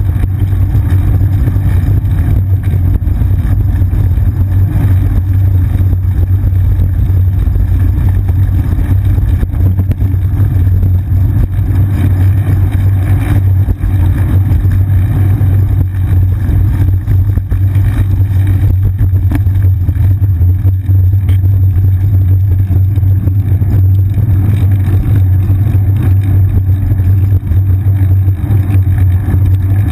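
Steady low rumble of wind and road vibration picked up by a seat-mounted GoPro in its waterproof housing on a moving bicycle.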